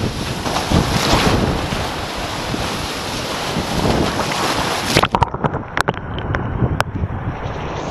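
Wind buffeting the action camera's microphone, mixed with rushing and splashing water as the kiteboard cuts through choppy waves. About five seconds in the rush suddenly turns duller, and sharp ticks come through over it.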